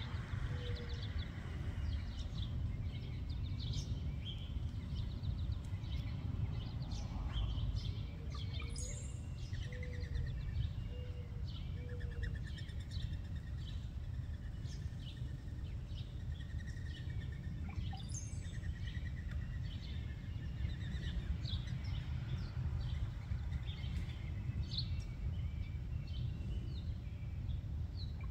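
Small birds chirping and calling throughout over a steady low rumble. A mourning dove's low, soft coos come about a second in and again from about eight to twelve seconds in.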